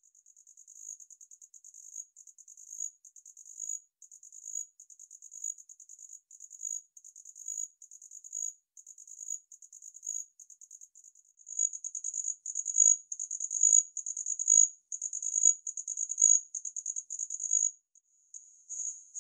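Homoeoxipha nigripes cricket singing: a high-pitched trill of rapid pulses, delivered in phrases about a second long and repeated steadily. It grows louder about halfway through and breaks off briefly near the end.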